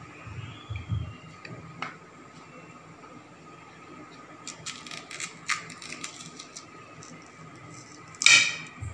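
Kitchen knife slitting okra pods lengthwise on a plastic plate: soft handling thumps, then scattered small clicks and taps of blade and pods. A short, louder rasp comes near the end.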